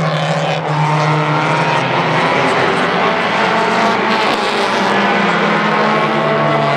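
Several compact tuner race cars' engines running hard together on the track, their overlapping engine notes gliding up and down in pitch as the cars pass.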